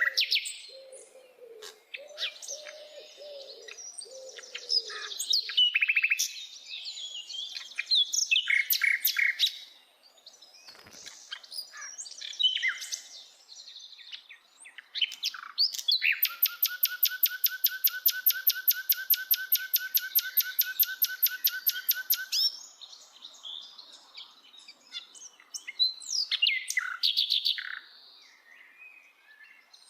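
Common nightingale singing: a varied run of whistles, chirps and trills, with a long, fast series of repeated notes, about seven a second, lasting some six seconds around the middle.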